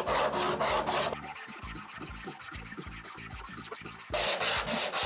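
Wood being sanded by hand: dense scratching for about the first second and again near the end, with quick, even rubbing strokes, about ten a second, in between.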